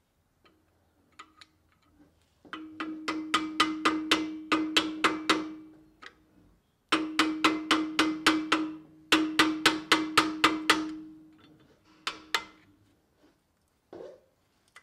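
Screwdriver tapping on a stubborn rear brake pad against the brake rotor: rapid metallic taps, about five a second, in three runs, with the rotor ringing under them and dying away after each run.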